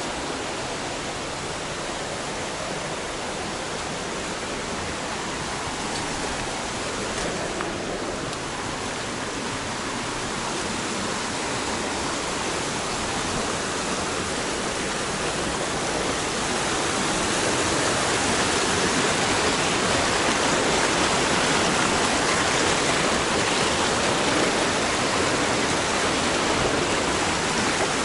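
Rocky mountain stream rushing over and between boulders below a waterfall: a steady hiss of running water that grows gradually louder.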